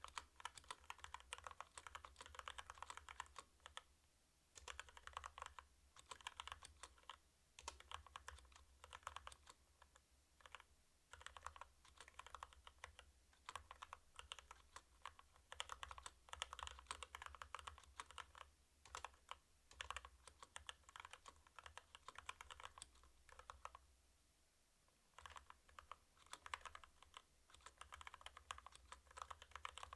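Typing on a CU65 mechanical keyboard with stock Kailh Box Red linear switches: quick, continuous runs of faint key clacks, broken by short pauses about four seconds in and again about three quarters of the way through.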